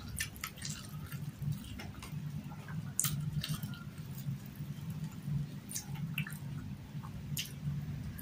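Close-miked eating sounds: wet, irregular clicks and smacks from a mouth chewing rice and fish, over a steady low hum.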